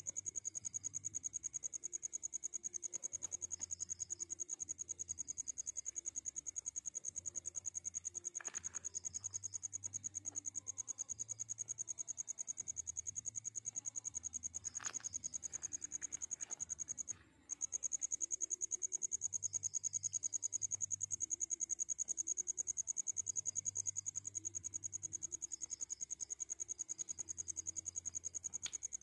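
A cricket trilling: one steady, high-pitched, rapidly pulsing trill that drops out briefly about two-thirds of the way through. A couple of faint clicks sound in the middle.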